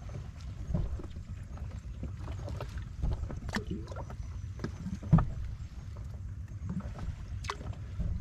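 Steady low rumble of sea and wind, with scattered small clicks and taps; the sharpest tap is about five seconds in.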